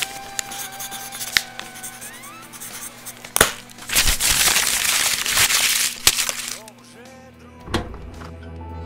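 A sheet of paper being crumpled and rustled by hand, loudest for about two and a half seconds around the middle, with a few sharp clicks, over ambient music that turns into a low drone near the end.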